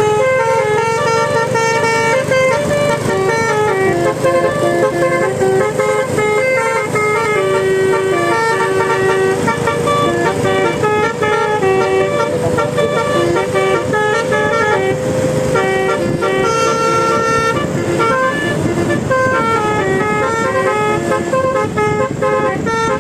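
Bus telolet multi-trumpet horn playing a tune: loud horn notes step up and down in quick succession over a held note, with a low rumble underneath.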